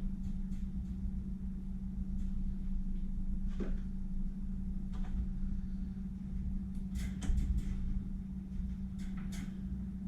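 Scattered light clicks and knocks of parts being handled while a chainsaw bar and chain are worked on, over a steady low hum.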